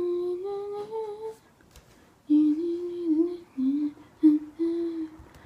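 A person humming a tune to themselves in a small room: a phrase of held, gently sliding notes, a short pause about a second and a half in, then several more short phrases.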